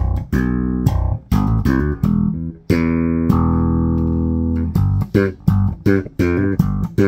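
Spector Dimension five-string active electric bass played through an amp with its treble boost on: a run of sharply plucked notes with bright attacks, one note held for about two seconds in the middle, then quicker short notes.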